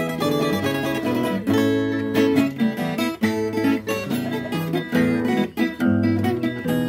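Acoustic guitar played solo, picking out a kuratsa tune: a melody over changing bass notes.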